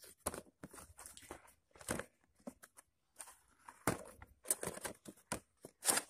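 Cardboard box of a toy remote-control car handled and opened by hand: irregular rustles, scrapes and light taps of cardboard and plastic packaging.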